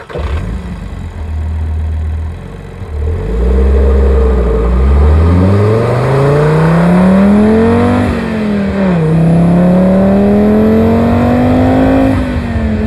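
2015 Audi RS3's 2.5-litre turbocharged five-cylinder engine and exhaust under hard acceleration: after a few seconds of low rumble the engine note climbs steadily, drops at an upshift about eight seconds in, climbs again and drops at a second upshift near the end.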